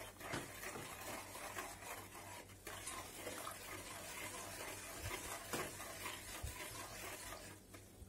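A metal spoon stirring baking soda and water in a bowl: faint scraping with a few light taps against the bowl.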